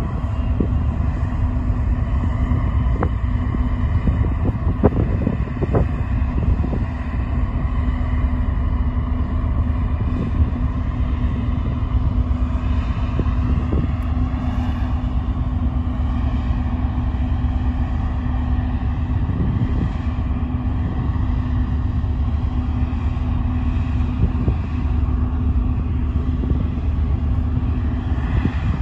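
Steady low drone of the car ferry Ulysses' engines running as she pulls away from the berth, with a constant hum over a deep rumble. Wind buffets the microphone, with a few brief knocks.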